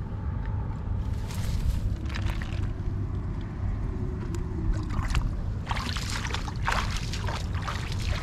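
Water splashing and sloshing in bursts, about a second in and again through the last few seconds, over a steady low rumble.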